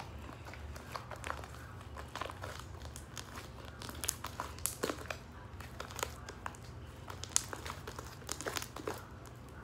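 Fluffy slime made from glue, shaving cream and borax being kneaded and stretched by hand, giving an irregular run of small squishy clicks and crackles.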